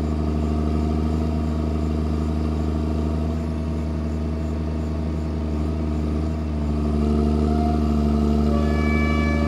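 New Holland motor grader's diesel engine running steadily. It picks up a little about seven seconds in, and a higher whine joins it near the end.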